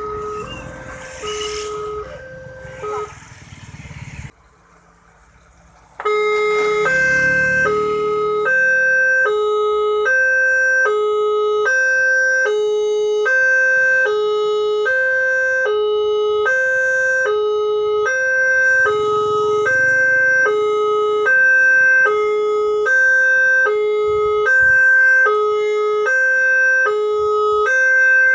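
Railway level-crossing warning siren, a Multec TC siren module driving a horn speaker, sounding a two-tone alarm that switches steadily between two notes, each held a little under a second, warning that a train is approaching. It is fainter at first, drops away briefly, then comes back loud about six seconds in.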